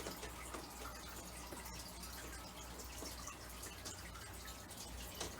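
Faint clicks and light handling noise of plastic TV frame clips being pressed back into place, over a low steady hum and hiss.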